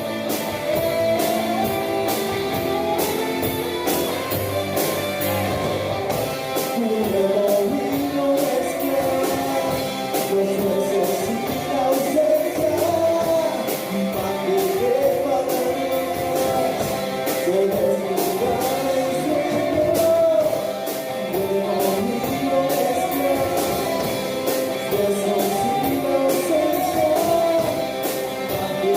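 Live rock band playing: a sung vocal over electric guitars and a steady drum beat.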